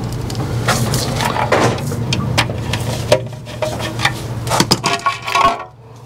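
Short clicks and scrapes of a screwdriver working on a metal back box and a plastic weatherproof socket, over a steady low hum; it goes quieter just before the end.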